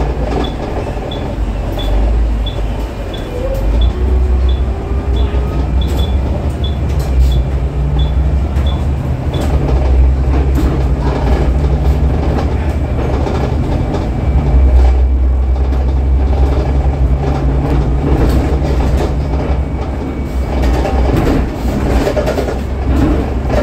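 Cabin noise inside a double-decker bus under way: a steady low engine drone and road rumble, with loose fittings rattling. A light high tick, the bus's turn indicator, repeats about twice a second for the first nine seconds or so, then stops.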